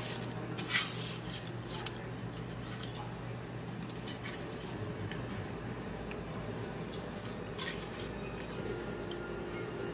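A gloved hand presses fish into breadcrumbs in an aluminium foil pan, with the crumbs rustling and the foil pan crinkling and tapping. A sharper clack comes about a second in. Throughout there is a steady low hum.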